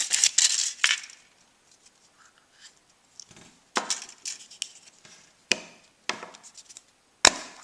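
Foil wrapper of a Kinder Surprise egg crinkling, then a few sharp cracks and clicks as the chocolate shell is broken open and the yellow plastic toy capsule is handled.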